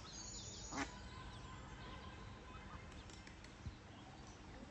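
A duck quacks once, about a second in, with faint small birds chirping.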